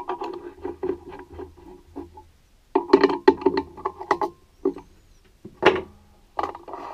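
Rapid metal clicking and clattering in two runs of about two seconds each, then a few separate knocks: a drill chuck and bit being fitted and set up at the lathe, with the spindle stopped.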